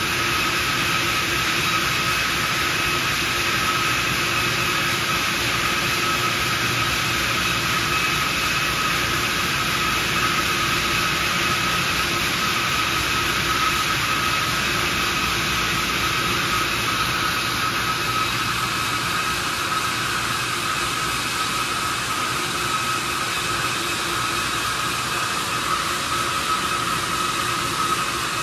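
Stone core-drilling machine (YHQJ-2000/2500) running, its large diamond core bit spinning and cutting into a white stone block under a water spray: a steady high whine over an even hiss.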